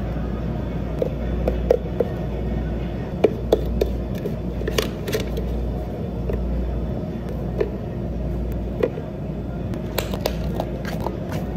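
Drink-making sounds at a café counter: short clinks and knocks of espresso shot glasses, a blender jug and plastic cups, with a cluster of clicks near the end as dome lids are snapped on. A steady low machine hum runs underneath.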